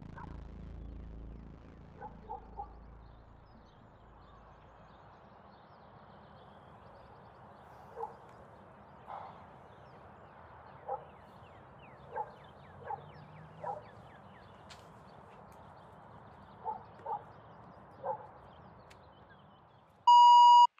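A distant dog barks about a dozen times at irregular intervals over a faint steady hiss. Near the end, a Nortel desk phone gives one loud electronic beep as one of its buttons is pressed.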